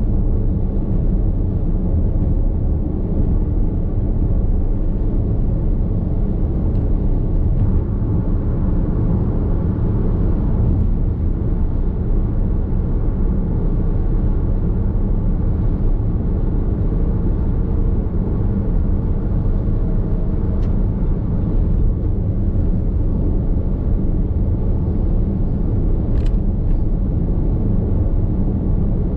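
Steady road and tyre rumble inside a Nissan X-Trail Hybrid cruising on an expressway at highway speed, with no change in pace.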